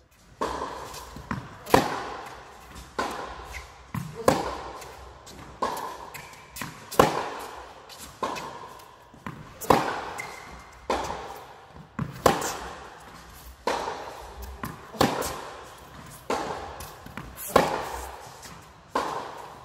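Tennis ball struck by rackets and bouncing on an indoor court in a steady baseline rally: sharp pops about every second and a half, louder and softer in turn, each echoing in the hall.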